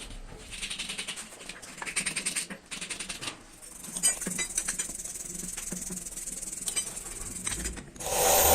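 Rapid clicking and rattling of hand tools on metal parts, then a quieter steady hiss with scattered ticks. Near the end a loud, steady power-tool or air-tool noise starts.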